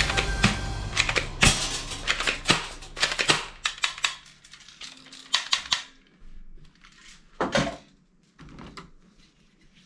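Hard plastic toy guns clicking and clattering as they are handled and laid into a box of other toy guns. The clicks come thick and fast at first, then thin out to a few separate knocks in the second half.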